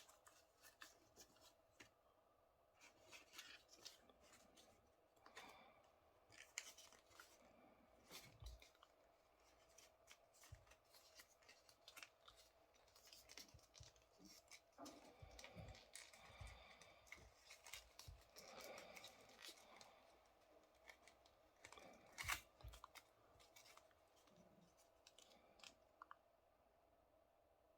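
A sheet of paper being folded and creased by hand: soft rustling, crinkling and scraping strokes at irregular intervals, with a sharper crinkle about twenty-two seconds in.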